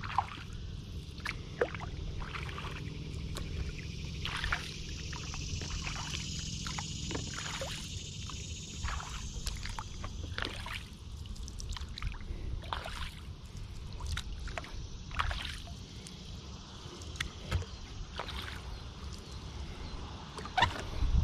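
Kayak being paddled on calm lake water: irregular splashes as the paddle blades dip and pull, with water dripping and trickling off the blades, over a steady low rumble.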